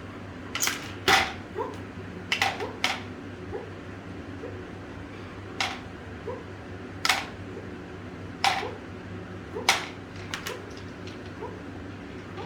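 Hard plastic toy pieces clacking and clicking as they are handled and put into a toy, in irregular single knocks and quick pairs, about a dozen in all, the loudest about a second in.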